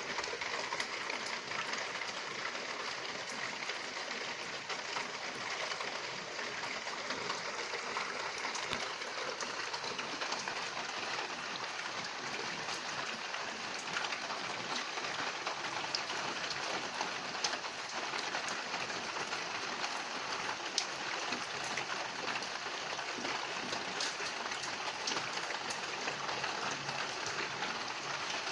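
Steady rain falling, an even hiss full of fine drop ticks, with a few louder single drips standing out in the second half.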